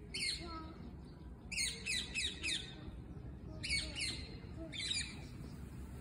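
Birds calling: short, sharp chirps that slide down in pitch, coming in runs of three or four, with quiet open-air background between them.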